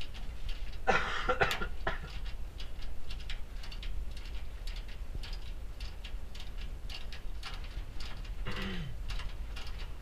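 Light metallic clicks and taps of hands working brass hose fittings and a service valve on an air-conditioner condensing unit, over a steady low hum. A short vocal sound, like a grunt or murmur, comes about a second in and another, falling in pitch, near the end.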